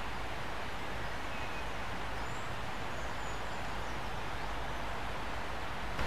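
Shallow river water running steadily over stones, an even rushing. A few faint high bird chirps come through about two to three seconds in.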